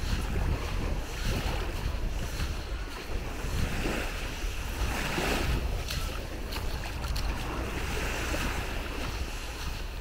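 Wind buffeting the microphone over small Baltic Sea waves washing onto a sandy shore.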